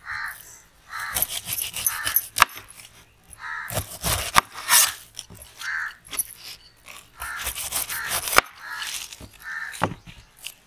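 A large kitchen knife cutting through pineapple rind and crown, with sharp knocks of the blade on a wooden chopping board. Crows cawing in the background.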